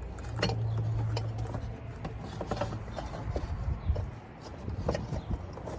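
Scattered knocks, clicks and rubbing of items being handled and pulled out of a box, over an intermittent low hum.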